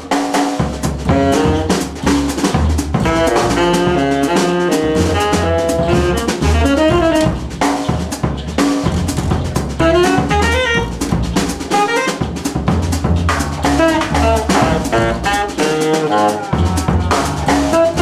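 Small jazz band playing live: drum kit keeping a busy beat under a bass line, while a wind instrument plays a fast melodic line with quick runs of notes up and down.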